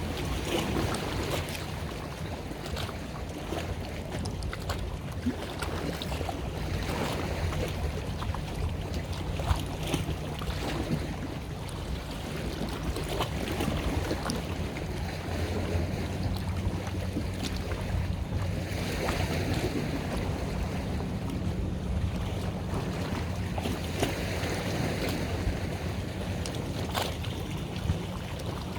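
A boat's engine running steadily with a low hum, with water washing around the hull and wind buffeting the microphone.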